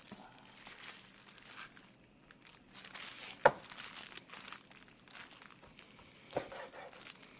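A kitchen knife slices through a slab of boiled pork on a cutting board, with the crinkle of a thin plastic glove on the hand holding the meat. The blade knocks sharply on the board about halfway through, and more softly near the end.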